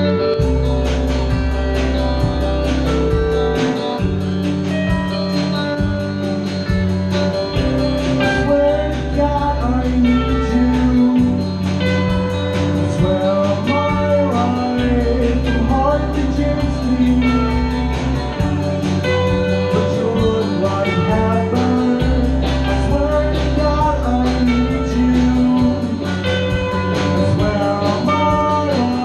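Live indie rock band playing an original song: electric guitars and a drum kit keeping a steady beat under a male lead vocalist singing.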